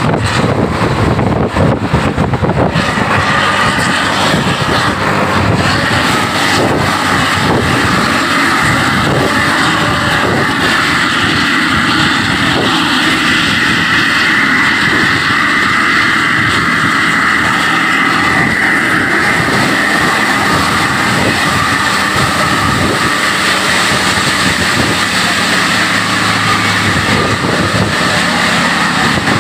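A bus's engine and moving-vehicle noise: a loud, steady drone that holds without a break.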